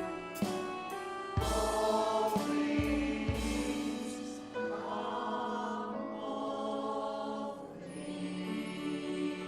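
Church worship group singing with a praise band, with several drum strikes in the first few seconds, then held notes.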